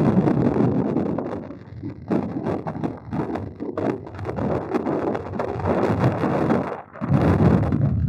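Wind buffeting the microphone outdoors: a gusting low rumble that swells and fades unevenly, dropping away briefly about seven seconds in.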